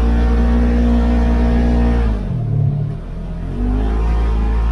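Off-road vehicle engine running under load, heard from inside the cab while driving on sand. About two seconds in the engine note drops and softens as the throttle eases off, then picks back up to its steady pitch about a second and a half later.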